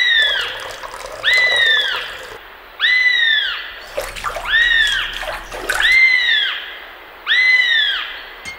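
A bird call repeated at even spacing, about every one and a half seconds, six times: each call is a short whistled note that rises and then falls. Faint splashing and trickling of water sits underneath, most of it in the middle.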